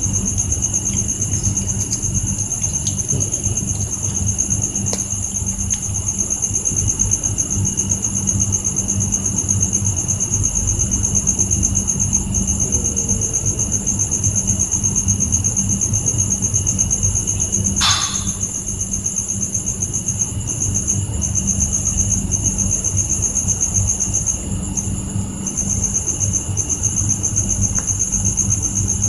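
Crickets chirring steadily over a low steady hum, with one brief falling sound a little past the middle.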